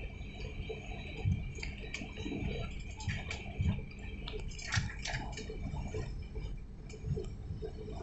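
Airliner cabin noise while taxiing: a steady low rumble with a constant high engine whine, broken by scattered light clicks and a few dull thumps.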